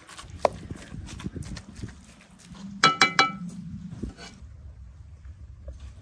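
Knocks and clicks of objects being handled, with a quick run of loud ringing clinks about three seconds in.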